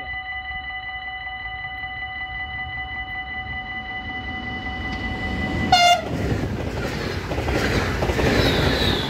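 NS yellow-and-blue double-deck electric train giving one short horn blast about six seconds in, then passing close with a rising rumble and wheel clatter. A steady, rapidly pulsing ringing warning signal sounds beneath, before the train arrives.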